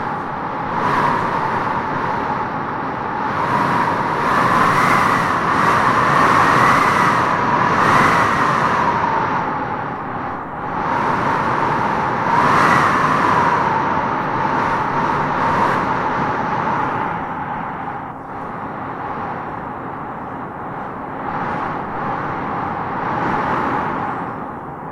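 Howling wind blowing in gusts: a steady rush with a whistling tone that rises and falls, swelling about four to nine seconds in and again around thirteen seconds, then easing off.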